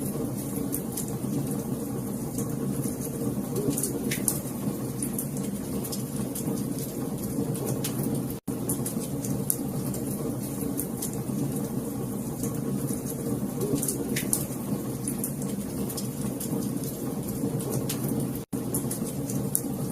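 Fire crackling in a fireplace: a steady low rumble of flames with frequent small sharp pops and snaps. The sound cuts out for an instant twice.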